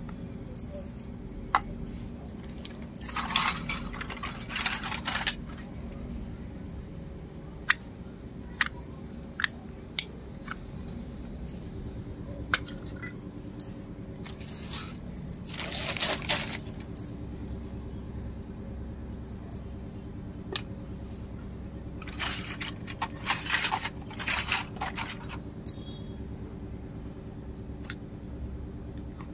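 Miniature stainless steel toy utensils and containers clinking and scraping as they are handled and set down on a concrete floor. The sound comes in three short flurries of rapid clinks, with single light taps between them.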